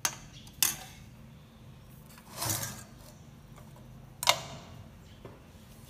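Sharp clinks of utensils and hands against a stainless steel pot as a whole chicken is settled into it: three knocks, near the start, about half a second later and loudest a little after four seconds, with a short scraping rustle in the middle.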